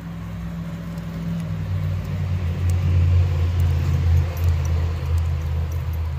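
A loud, steady low rumble that swells over the first few seconds, with a few faint ticks above it.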